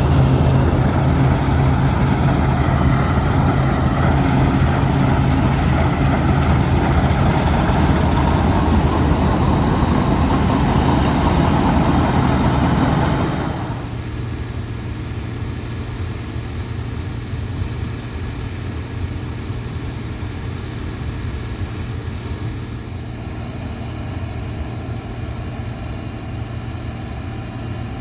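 Heavy farm machinery's diesel engine running steadily. About 13 seconds in, the sound drops in level and the harsher upper noise falls away, leaving a quieter, steady engine note.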